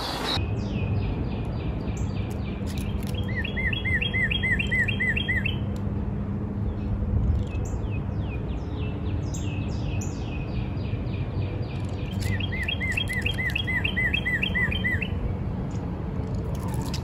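A songbird singing two songs, each a run of repeated down-slurred notes that turns into a faster run of paired notes, over a steady low rumble.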